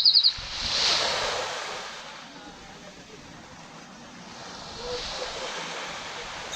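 Small Caribbean waves washing onto the beach, swelling about a second in and again near the end. A bird gives a short burst of quick, high chirps at the very start.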